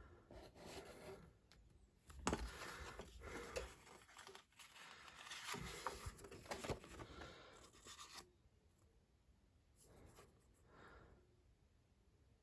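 A plastic marble rolling down a Hubelino Duplo-compatible marble run slide: a faint rolling rasp with a few clicks for about six seconds, then a shorter, fainter roll near the end.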